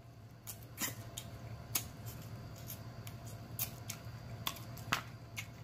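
A person eating close to the microphone: chewing and lip-smacking, heard as irregular wet clicks and smacks. A low steady hum runs underneath.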